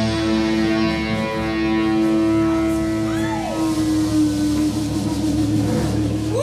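Blues-rock trio's electric guitar and bass guitar holding a long sustained closing chord, the guitar note sagging and wavering in pitch about halfway through.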